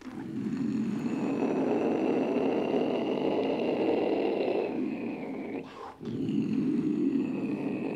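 A man's vocal imitation of a huge waterfall, the falls of the Zambezi: a continuous, rough, throaty rushing noise made with the mouth and throat. It breaks off briefly about six seconds in, as if for a breath, then starts again.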